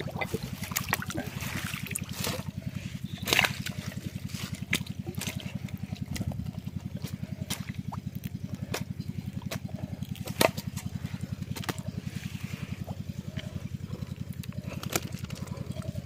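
Water trickling and splashing as a fish trap is handled and emptied, with a few sharp knocks, over a steady low pulsing hum.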